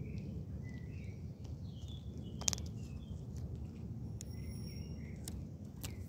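Outdoor ambience: a steady low rumble with scattered short bird chirps and one sharp click about two and a half seconds in.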